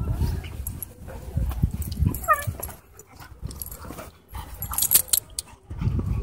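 Two Siberian huskies play-fighting: scuffling and irregular thumps on the dirt, with one short, wavering whine about two seconds in.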